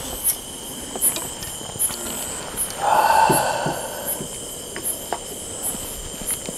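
Crickets and other night insects calling steadily: a high chirp repeating about three times a second over a steady high drone. About three seconds in, a brief louder rustling noise rises over them.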